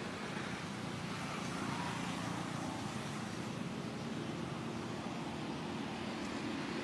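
Steady outdoor background noise with a distant motor engine running, its low hum becoming clearer about halfway through.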